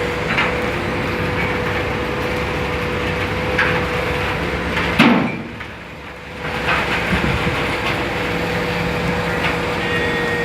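A machine engine running steadily with a held hum and occasional knocks. A sharp knock comes about five seconds in, after which the noise briefly dips before returning.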